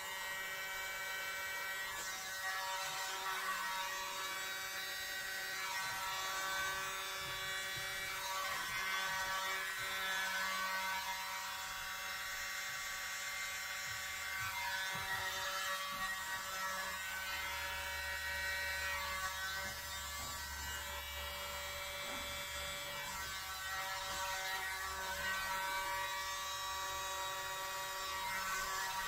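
A tiny corded electric blower, a mini leaf blower fitted with a thin nozzle, running steadily with a buzzing motor whine as it blows air onto wet acrylic paint.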